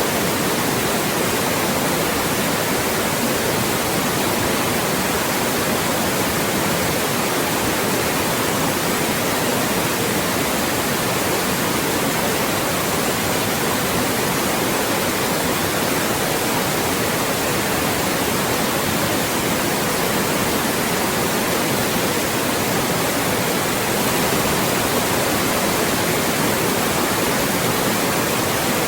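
Loud, steady white noise for masking speech: an even, unchanging hiss.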